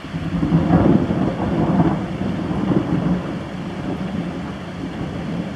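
Thunder: a rolling rumble that starts suddenly, is loudest in the first two seconds and then slowly fades.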